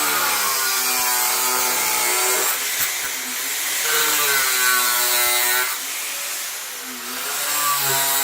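Power saw cutting into a buried sewer pipe, its motor pitch dipping and recovering several times as the blade bites and eases off, over a hiss of cutting noise.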